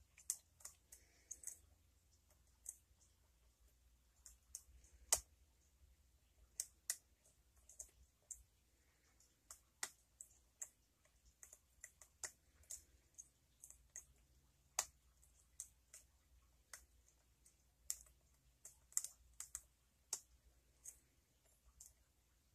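Faint, irregular small clicks of a lock pick and tension wrench working the pin tumblers of a challenge lock, a few louder than the rest, about five seconds and fifteen seconds in.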